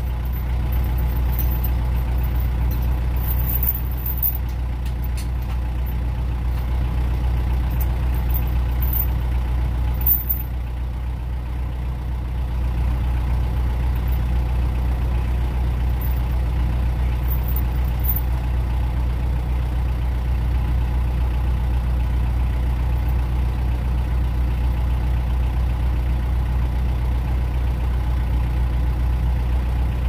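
Farm vehicle engine running steadily at a constant speed, with a few light clicks and rattles in the first half. It gets a little louder about twelve seconds in.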